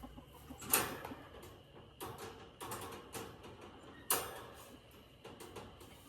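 Three loud clattering knocks, about a second in, at two seconds and at four seconds, each trailing off in a short rattle, with smaller knocks between them.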